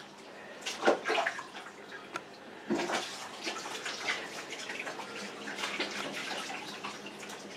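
Water running and splashing, as from a tap into a sink or basin, with irregular knocks and clatter, the loudest about a second in and again near three seconds.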